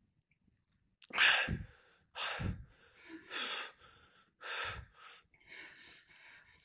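A person breathing hard and fast, about five heavy breaths a second apart, the first the loudest and the rest easing off: out of breath and catching it after running.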